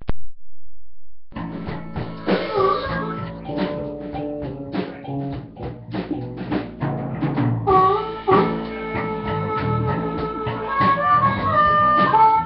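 Live blues-rock band playing: drum kit, electric guitar and bass, coming in about a second in after a brief click, through thin, low-bandwidth streamed audio.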